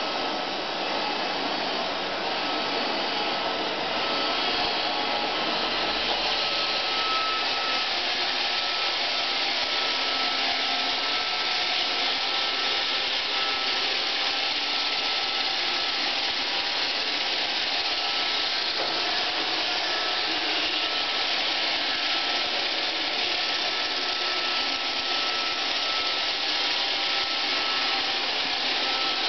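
iRobot Roomba 520 robot vacuum running: a steady whirring hiss of its vacuum motor and brushes, with a thin steady whine on top.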